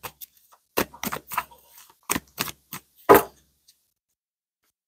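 About six sharp clicks and taps at irregular intervals, the loudest a little past the middle.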